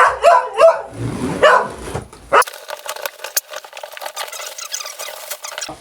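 A pet dog yipping and whining in short pitched calls for about two seconds, then a crackling, rustling stretch of many small clicks.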